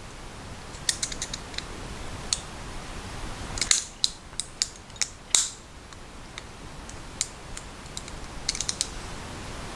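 Small clicks and light metal clinks of a button-lock folding knife's parts (blade, button lock and spring, handle) being handled and fitted together during reassembly. They come in clusters: a run about a second in, the loudest few between three and a half and five and a half seconds, and another quick run near the end.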